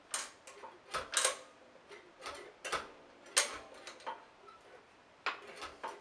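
About a dozen irregular sharp clicks and knocks as the handle and handle bezel of a 1959 Hoover Senior 638 upright vacuum cleaner are worked and checked by hand.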